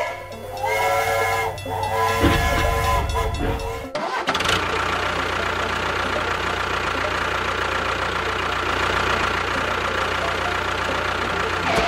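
A pitched sound stepping between a few notes for about four seconds, then a motor starts abruptly and runs steadily with a low hum.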